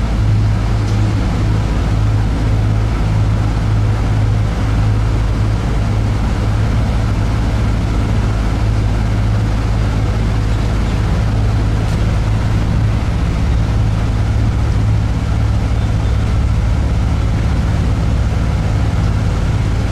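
Airport apron bus's engine running with a steady low drone, heard from inside the cabin.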